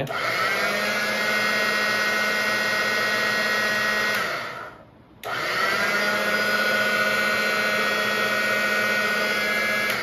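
ElectroSky portable bucket washing machine's 350-watt motor running dry in the air, its black wash disc spinning with a steady hum and whine that rises in pitch as it spins up. It winds down and stops about four seconds in, then is switched on again about a second later and spins back up.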